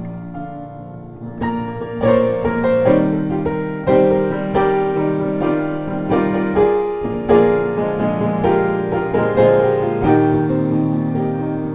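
Piano music: chords and melody notes struck and let ring. It is soft for the first second or so, then fuller chords come in at a slow, even pace.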